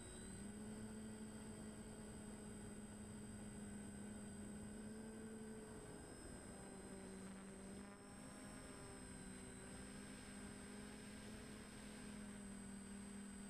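DJI Flamewheel F450 quadcopter's motors and propellers humming steadily in flight, faint, with a thin high whine above. The pitch shifts a little about six seconds in, and the level dips briefly about two seconds later.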